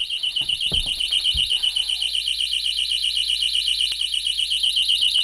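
Thitronik gas warner's built-in alarm sounder going off, a really loud, rapidly pulsing high-pitched beep, set off by deodorant spray and hand-disinfectant vapours pooling near the floor. A few soft thumps of footsteps and handling come in the first second and a half.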